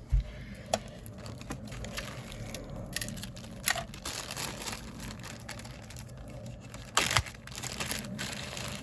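Hands rummaging through craft supplies: a steady crinkling rustle of paper and packets, broken by a few sharp taps and clicks, the loudest a close pair about seven seconds in.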